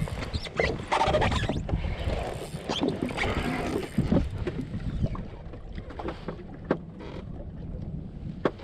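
Wind buffeting the microphone and water slapping against a jet ski's hull, with scattered knocks and clicks from a spinning rod and reel being worked. It is louder and busier in the first half, then settles.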